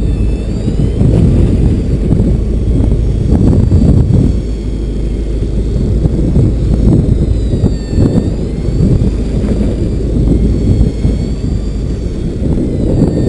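Steady low rumble of a fishing boat's engine mixed with wind buffeting the microphone, with a faint high whine that dips and rises in pitch.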